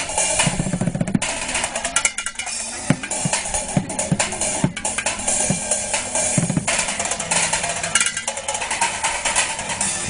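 Street drummer beating upturned cooking pots, woks, pans, metal lids and a plastic bucket with drumsticks like a drum kit: a fast, busy rhythm of sharp metallic clanks and cracks with deeper thuds mixed in.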